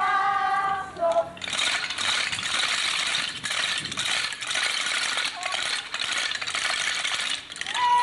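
Wooden Easter clappers (Klappern) rattling together in a dense, continuous clatter for about six seconds, starting just after a short sung chant; they are sounded in Holy Week in place of the silent church bells.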